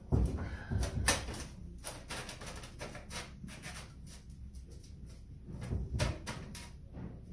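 Sheet-metal work on a manual folder: an irregular string of metallic knocks and clicks as the panel's tabs are clamped and bent, loudest about a second in and again near six seconds.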